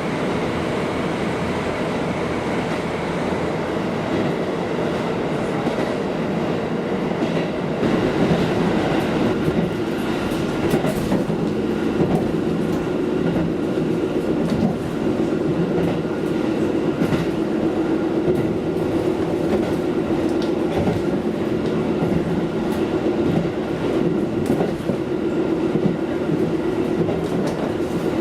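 KiHa diesel railcar running along the line: a steady drone from the moving train, with the wheels clicking over rail joints now and then.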